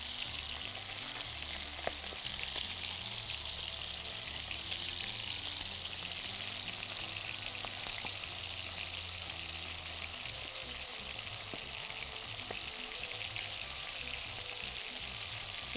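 Chicken breasts and pieces of chicken skin sizzling steadily as they fry in a nonstick frying pan, stirred with a utensil, with a couple of light knocks against the pan.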